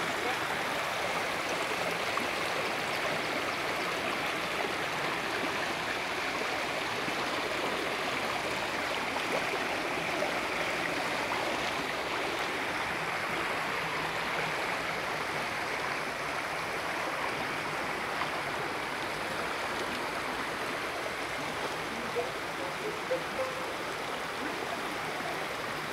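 Floodwater flowing steadily across flooded farmland: a constant, even rush of moving water.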